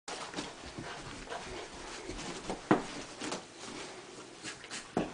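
Lab/hound mix puppy scrambling and rolling on carpet: irregular scuffling and rustling with small dog noises, and one sharp knock about two and a half seconds in.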